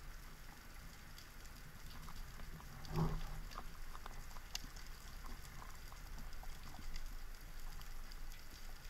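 Underwater sound picked up through a camera housing on a rocky reef: faint, scattered clicks and crackles. About three seconds in there is one short, louder, low-pitched sound.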